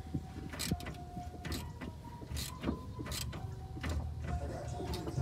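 Irregular clicks and clinks of hand tools against metal on a vehicle's underside, about one or two a second, over a low rumble.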